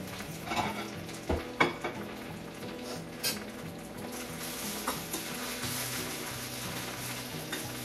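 Spinach sizzling in a frying pan on a gas stove, with several clicks and knocks of a utensil stirring against the pan.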